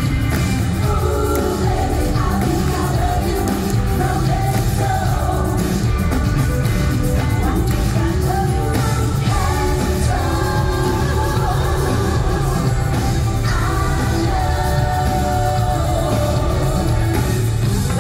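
Live freestyle pop music: a female lead singer with backing vocalists over a band with keyboards, electric guitar and a heavy, steady bass beat.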